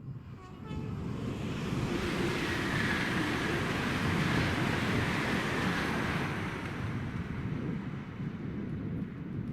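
A train passing through at speed: a rushing noise of wheels and air that swells about a second in, is loudest through the middle, then eases away.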